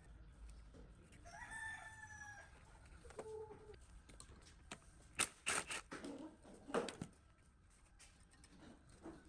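A rooster crows once in the background, followed by a short cluck. A few seconds in, a quick run of sharp clicks and knocks is the loudest sound.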